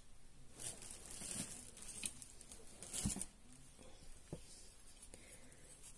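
Synthetic fibre stuffing (sintepon) being handled and pulled apart by hand: soft rustling and tearing in two short bouts, about a second in and again around three seconds, with a couple of light knocks.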